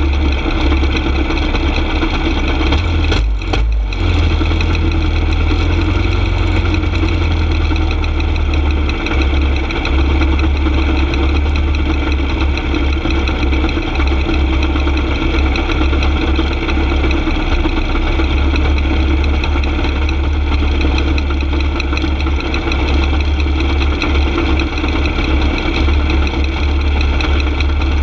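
Caged dirt go-kart's engine idling steadily while the kart stands still, with a brief dip about three seconds in.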